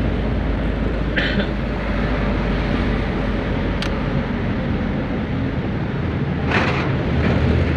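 Bus engine running with road noise, heard from inside the driver's cab while driving slowly in traffic, with a couple of brief hiss-like bursts, one about a second in and one near the end.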